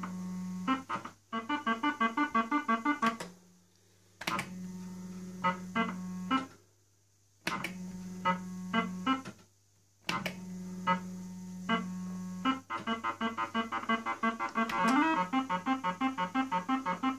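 Old British fruit machine in play: its electronic sound chip beeps tunes of short repeated notes while the reels spin, with sharp clicks as reels stop. This repeats over several spins separated by short silences. Near the end comes a faster run of beeps with a rising sweep.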